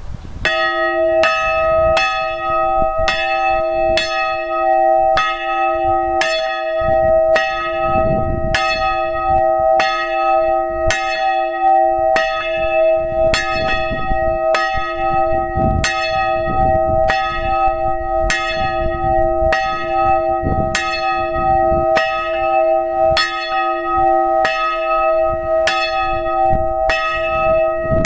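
Hand-swung church bell, a 1921 Schilling & Lattermann hard-cast iron bell tuned to e'', ringing: its clapper starts striking right away and then strikes steadily about once a second, each stroke ringing on into the next.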